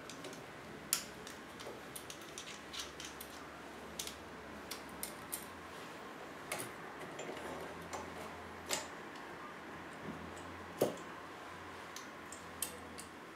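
Irregular small clicks and knocks of hard plastic and metal parts as a small mount is handled and fitted to a microphone stand's arm clamp by hand. A firmer knock comes about three-quarters of the way through.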